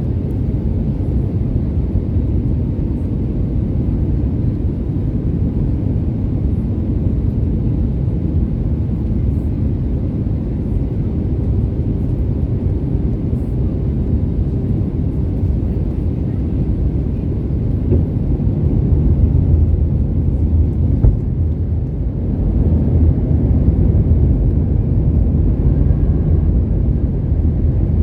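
Cabin noise inside an Airbus A320neo on final approach: a steady deep rumble of airflow and its CFM LEAP-1A engines. It grows louder about two-thirds of the way through.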